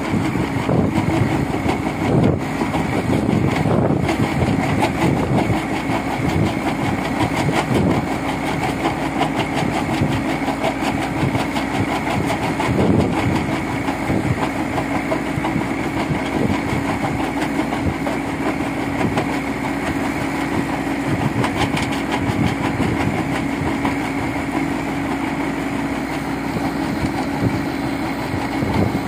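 Caterpillar backhoe loader's diesel engine running steadily under load, driving a hydraulic crusher bucket. Stone rattles and cracks continuously in the bucket's jaws as it is crushed into gravel.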